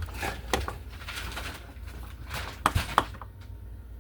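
Handling sounds at the wall: a few sharp clicks and knocks, two of them close together near the end, with some scraping and rustling between them.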